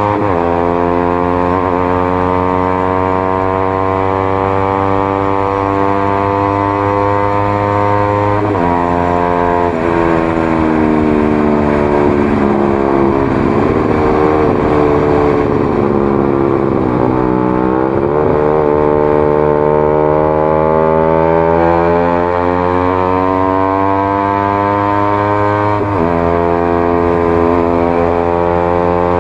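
Honda CBR150R single-cylinder engine running through an aftermarket Daytona x Proliner short exhaust while riding. The steady engine drone drops in pitch at gear changes just after the start, around nine seconds in and near the end. In the middle it sags, dips sharply, then climbs again as the bike speeds up.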